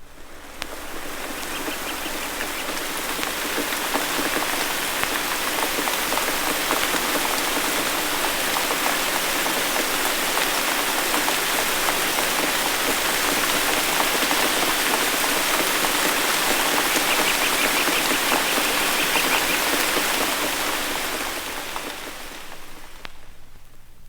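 Rain falling steadily in woodland, a dense even patter from a 1960s sound-effects recording played from vinyl. It fades in over the first few seconds and fades out near the end, over a faint low hum.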